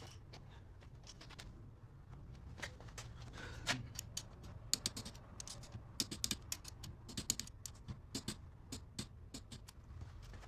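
Irregular light clicks and taps from parts and tools being handled, over a steady low hum.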